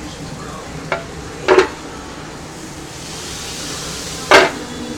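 A burger frying on a grill, sizzling steadily, with a light click about a second in and two loud, sharp knocks about a second and a half and four seconds in.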